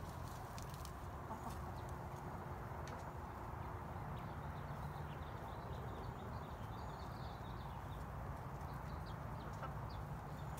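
Backyard hens clucking softly over a steady low background hum, with a few faint light ticks.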